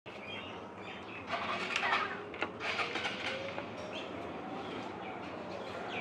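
Birds calling: two bursts of sharp, harsh chirps, about a second apart, over steady background noise.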